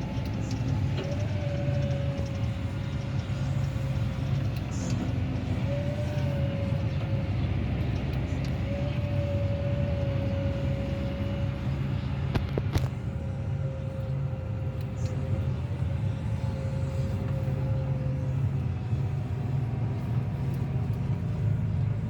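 Farm vehicle engine running steadily, with a wavering mid-pitched whine over the low hum and a single click about halfway through.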